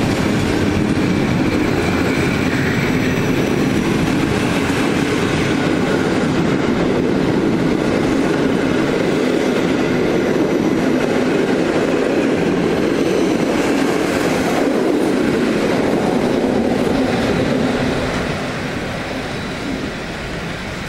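Passenger coaches of a locomotive-hauled train rolling past close by, their wheels running on the rails in a steady loud rush. It starts to fade about eighteen seconds in as the last coach moves away.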